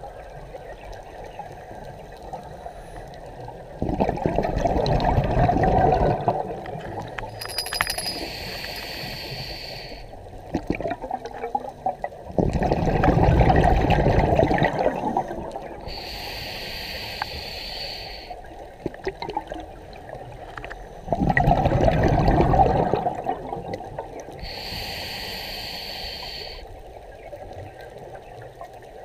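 Scuba diver breathing slowly through a regulator underwater: three long bursts of exhaust bubbles, each followed by the high hiss of the regulator as the diver breathes in.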